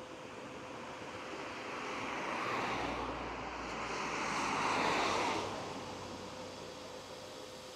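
Road traffic passing close by, a car and then a van: tyre and engine noise swells twice, the second pass louder, about five seconds in, then fades.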